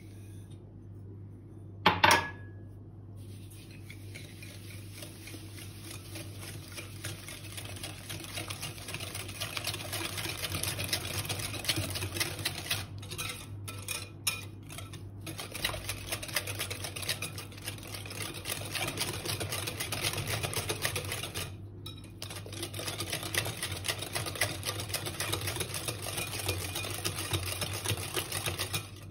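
Wire balloon whisk beating eggs and sugar in a glass bowl: rapid clicking and scraping of the wires against the glass, broken by a few short pauses. About two seconds in, one sharp clink against the bowl before the whisking starts.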